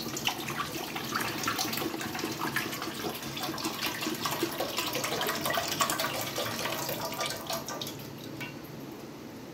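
Milk pouring in a stream from a carton into a cooking pot, splashing steadily, then tailing off about eight seconds in as the pour ends.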